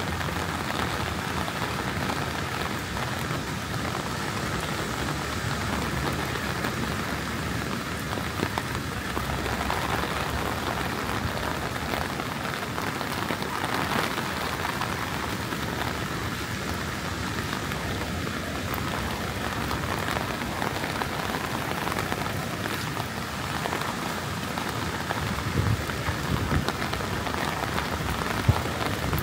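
Heavy rain falling steadily, with no let-up, and a few low thumps near the end.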